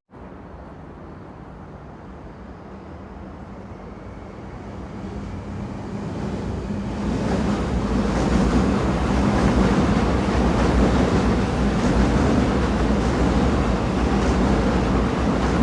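Train running on rails: a steady low hum and rumbling rail noise that start abruptly, grow louder over the first seven seconds or so as it picks up, then hold steady.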